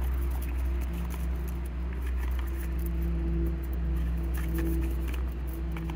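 Dry wild grape aerial root fibres rustling and crackling in the hands as they are twisted and wrapped into reverse wrap cordage, a scatter of small ticks and scratches. A steady low hum runs underneath.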